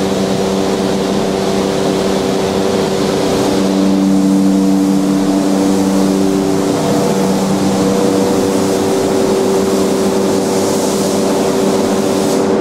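A motor-driven machine running steadily at constant speed: a hum of several even tones under a loud hiss of air, the tones shifting slightly a few seconds in.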